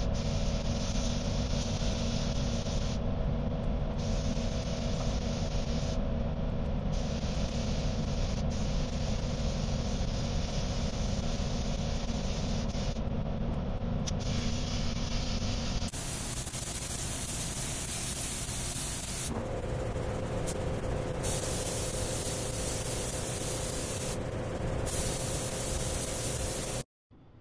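Air spray gun hissing as automotive paint is sprayed, stopping briefly several times as the trigger is released and picking up again, over a steady low hum. The sound changes abruptly about two-thirds of the way through and cuts off just before the end.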